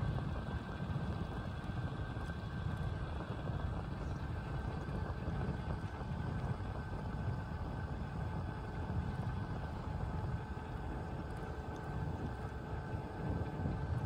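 Steady low wind rumble on the microphone mixed with tyre noise rolling over concrete pavement, from riding a bicycle along an open freeway.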